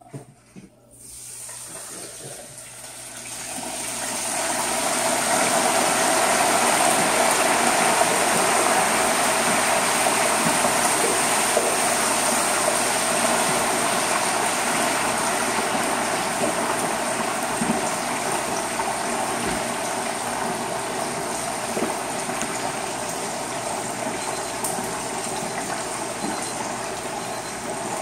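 Hot oil in an electric turkey fryer bubbling and sizzling hard as a whole 20-pound turkey is lowered slowly into it. The sizzle builds over the first few seconds to a steady, loud boil, then eases gradually over the second half.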